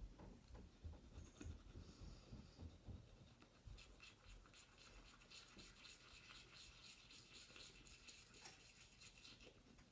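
Faint scratchy scrubbing of a child's toothbrush brushing teeth, in rapid back-and-forth strokes. It is softer and lower in the first few seconds, grows scratchier from about three and a half seconds in, and stops shortly before the end.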